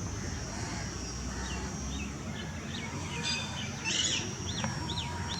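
Small birds chirping, with a run of quick rising notes near the end, over a steady thin high whine and a low rumble.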